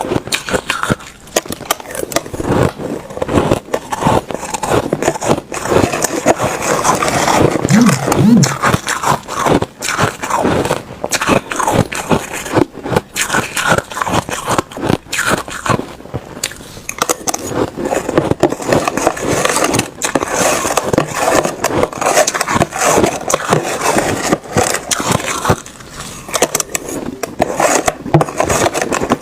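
Ice being chewed close to the microphone: a dense run of crisp crunching and crackling that goes on without a break.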